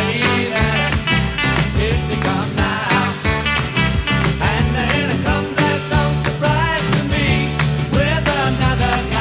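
Upbeat pop music track with a steady drum beat and bassline.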